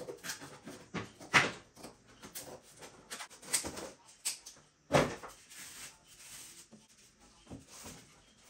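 Scissors snipping through cardboard and the cardboard rustling as it is handled, in a run of short crisp strokes, with two sharp knocks, the loudest about one and a half seconds in and another about five seconds in.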